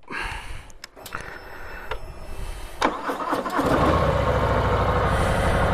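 2019 Harley-Davidson FXDR's Milwaukee-Eight 114 V-twin being started on its stock exhaust: a few clicks, then the engine catches about three and a half seconds in and settles into a steady, loud idle.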